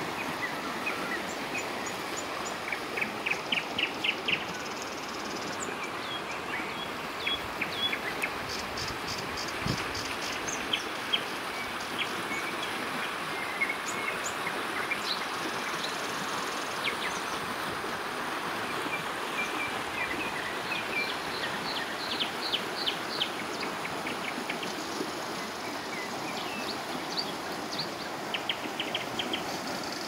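A shallow river rushes steadily over rocks in small rapids. Small songbirds chirp and trill over it throughout, several of them in quick runs of repeated high notes.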